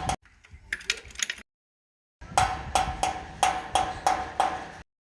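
A rhythmic percussive beat of sharp knocks, about three a second, each with a short ringing tone. It drops out into dead silence for under a second, resumes, and cuts off abruptly near the end.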